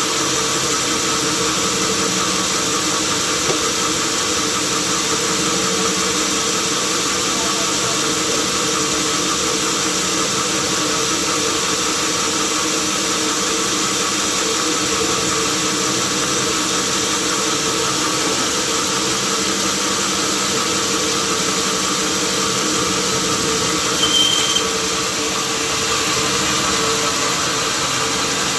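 Sawmill machinery running steadily: a continuous mechanical din with a steady hum, and a brief high-pitched squeal about three-quarters of the way through.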